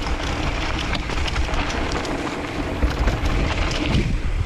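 Mountain bike riding fast down a dirt trail: a steady rush of tyre and wind noise on the camera microphone, with small clicks and clatters from the bike over roots and rough ground.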